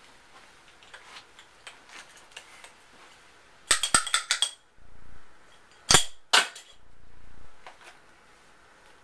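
Small hard objects clinking as they are handled: a quick rattle of light clinks a little before halfway, then two sharp clicks about two seconds later.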